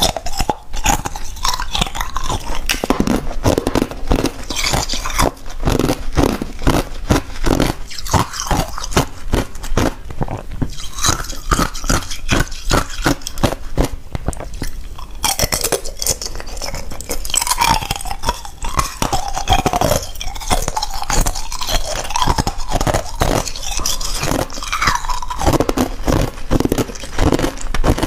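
Thin ice being bitten and chewed close to a clip-on microphone: dense, continuous crunching and cracking.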